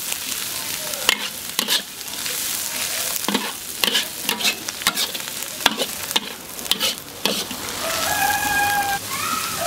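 Metal spatula stirring and tossing sauerkraut with chillies in a hot, oiled iron wok: a steady sizzle of frying broken by sharp scrapes and clicks of the spatula against the wok. Near the end a long, steady pitched call comes in behind the frying.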